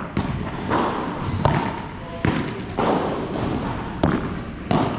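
Padel rally: the ball struck by rackets and bouncing on the court, about seven sharp hits at uneven intervals.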